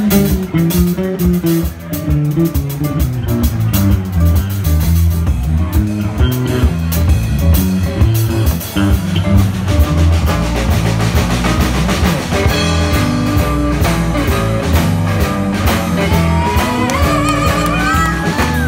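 Live band playing through a PA: electric guitar, electric bass and drum kit, with a stepping bass line under a steady drum beat. About halfway through, a wavering melody line comes in above it.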